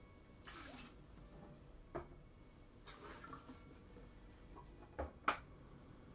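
Small pours of liquid seasoning into a stainless steel saucepan of dashi, a short splash about half a second in and another around three seconds in. Light metallic clicks from a measuring spoon against the pan come through, with the sharpest clink a little after five seconds in.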